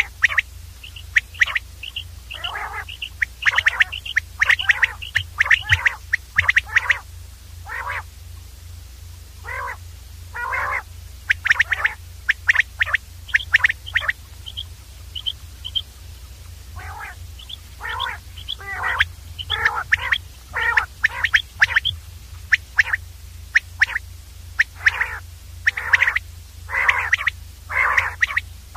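Common quail calling over and over: short, sharp calls in quick runs with brief gaps, over a steady low hum.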